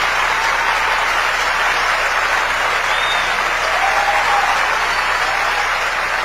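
Audience applauding steadily at the end of a live song.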